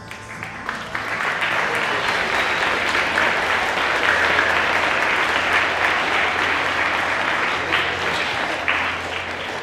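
A gym full of schoolchildren applauding, the clapping swelling up over the first second or two, holding steady, then dying away at the very end.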